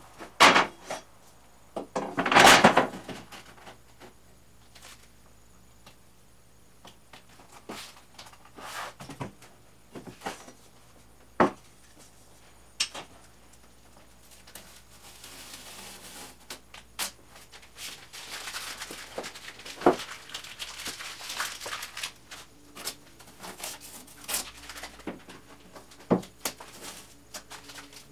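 Hand-work noises while grip tape is applied to a plywood ramp. Sharp knocks and clicks come in two loud clusters within the first three seconds, then scattered ones, with longer stretches of rustling and scraping past the middle.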